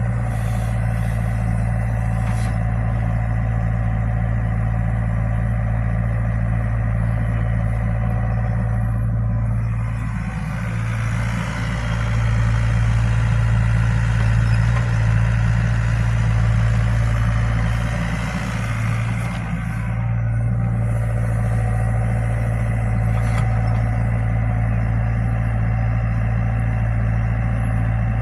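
Excavator's diesel engine running with a steady low drone. It grows louder and rougher from about ten seconds in until about twenty seconds in, then settles back.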